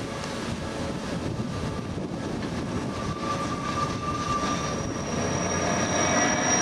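Train running along the track: a steady rumble with thin, high steady whining tones over it, the highest coming in about four seconds in as the sound grows a little louder.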